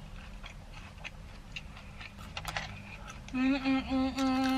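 Faint small clicks and rustles, then from about three seconds in a woman humming a held note with her mouth closed, loud and steady in pitch, while she eats fries.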